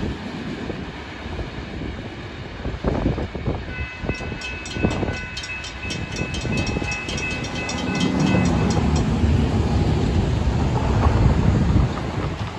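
Freight train rumbling away past the grade crossing. In the middle, a crossing-signal bell rings with steady high tones, about four strokes a second. Near the end it gives way to the louder rumble of road vehicles driving over the crossing.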